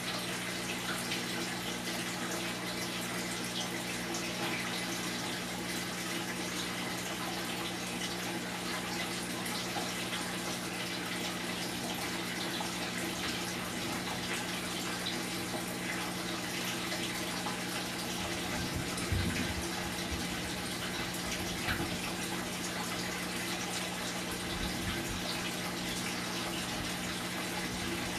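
Heavy rain pouring steadily, with a steady low hum underneath and a few short low thumps about two-thirds of the way through.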